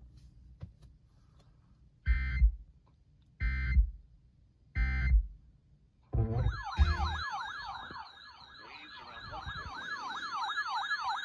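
Three short buzzing bursts of Emergency Alert System header data, then, about six seconds in, a siren-like alert tone that warbles rapidly up and down and grows louder. Together they open a new severe thunderstorm warning broadcast.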